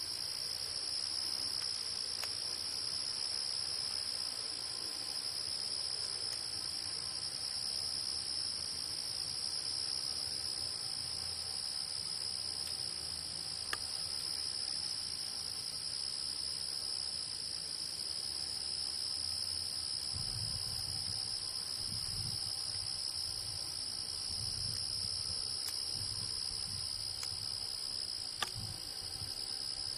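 Steady chorus of singing insects, a continuous high-pitched trill, with uneven low rumbling from about two-thirds of the way in and two small clicks.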